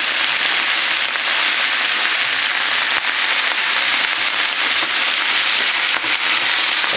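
Chicken pieces sizzling loudly in hot oil in a frying pan, a steady hiss with small crackles, as they are seared on both sides.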